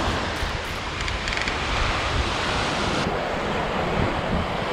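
Ocean surf washing onto a beach, with wind buffeting the microphone.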